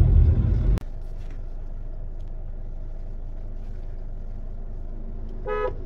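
Hyundai Tucson cabin noise: a steady low engine and road drone, loud for the first second, then dropping suddenly to a quieter drone. Near the end comes one short toot of the car's horn.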